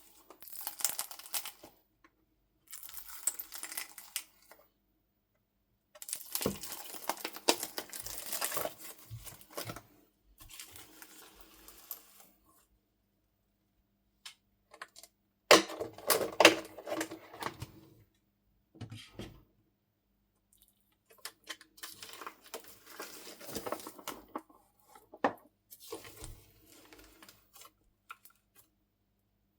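Hands squishing, stretching and folding slime mixed with soft clay, making sticky crackling and popping noises. These come in bursts of a few seconds with short pauses between, and the loudest bout of popping is near the middle.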